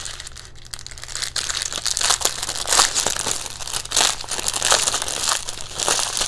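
Plastic packaging of a diamond painting kit crinkling and crackling as it is handled and opened, getting louder and busier about two seconds in.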